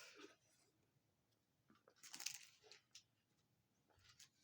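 Mostly near silence, broken about two seconds in by a brief faint rustle and a few light clicks of game components and box packaging being handled.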